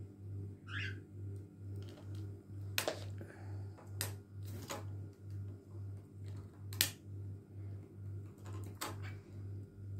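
Cockatiel's beak tapping and pecking at a small plastic-framed hand mirror: a handful of sharp clicks, one to two seconds apart, over a low hum that pulses about twice a second.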